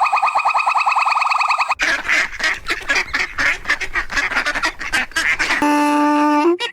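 A string of animal calls: a fast trill of repeated high notes, then a stretch of harsh, rapid honking calls typical of ducks or geese, then one steady held note near the end.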